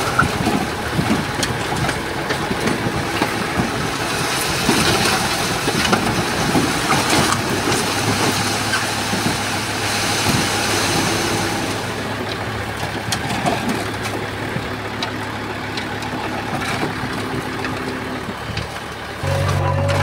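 Diesel earthmoving machinery working, its engine running under a dense, noisy clatter with many knocks. Near the end a steady low engine drone starts abruptly.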